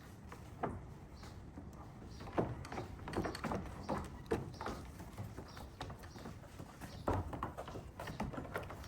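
Sheep hooves clattering in irregular steps as the animal is walked.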